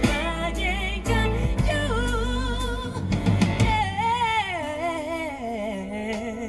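A female soul ballad vocal played back through a car's sound-quality audio system: sung notes with wide vibrato over bass and drums, the bass and drums dropping away about three seconds in while the voice carries on in a long falling run.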